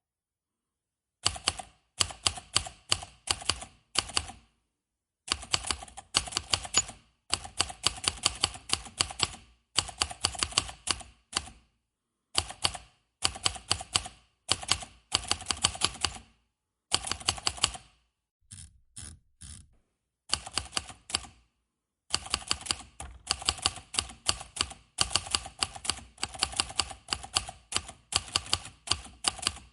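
Manual typewriter keys being struck in quick runs of a second or two, with short pauses between the runs.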